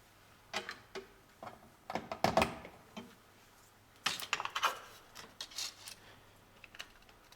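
Light plastic clicks and rattles of PC power-supply cables and connectors being handled, in two busier clusters about two seconds in and about four seconds in.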